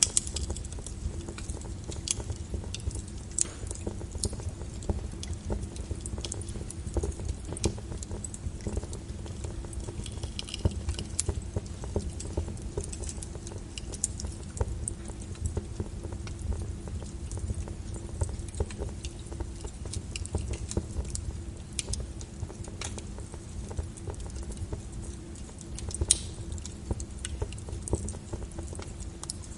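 Wood fire in a fireplace crackling: irregular snaps and pops over the low rumble of the flames, with one louder pop near the end.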